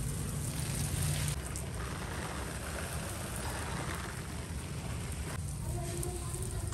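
Water sprayed over potted balcony plants, the drops falling on leaves with a steady rain-like hiss.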